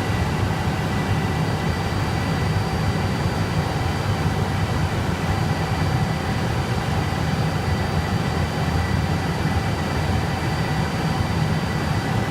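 Steady whir of data-centre equipment and cooling fans: a constant loud rush with a few faint steady whining tones on top.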